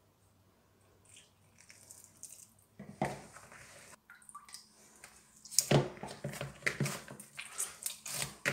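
Hand kneading a stiff flour dough in a bowl: soft, sticky squelches and irregular taps, sparse at first and busy through the second half, with a single knock of the bowl about three seconds in.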